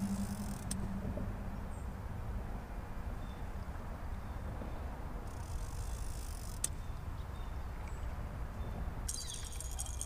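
Steady low outdoor rumble on an open boat with a couple of faint clicks, while a catfish is played on rod and line; about nine seconds in a hissing splash starts as the hooked catfish nears the surface beside the boat.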